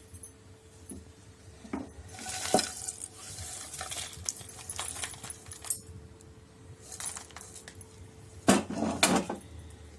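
Hot tempering being scraped out of a kadai onto a steel plate of boiled rice: scattered scrapes and clinks of a utensil against the pan, with the loudest run of scraping about eight and a half seconds in.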